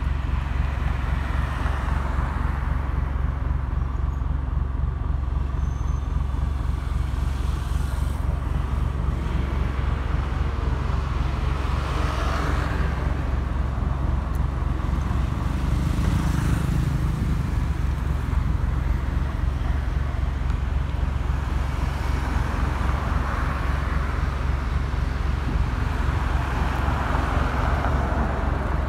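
Airbus A320-216's CFM56-5B jet engines passing overhead at a distance as a steady low rumble. Road traffic noise swells and fades with passing vehicles.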